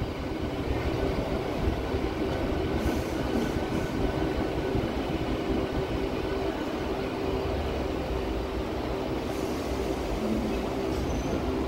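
MMTS suburban electric local train running, a steady rumble and rattle of the coaches on the track.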